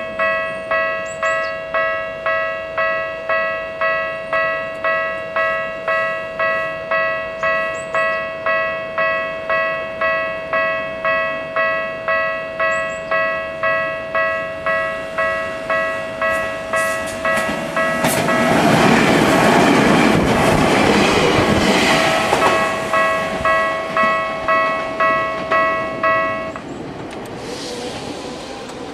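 Japanese level-crossing alarm ringing its electronic bell about twice a second over a steady tone. About 18 seconds in, a Tokyu 1000 series electric train passes over the crossing, loud for about five seconds. The alarm stops about 26 seconds in, and the train fades away.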